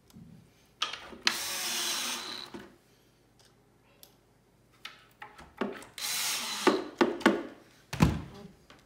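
Cordless drill driving screws into the wooden side panel of a flat-pack bench: two bursts of the motor running, the first about a second and a half long and the second about a second, with small clicks between them and a thump near the end.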